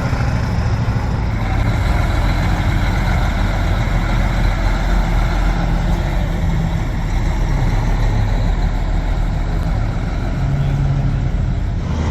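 Heavy diesel truck engine running loudly with a steady low drone, its pitch rising and falling a few times as it pulls away.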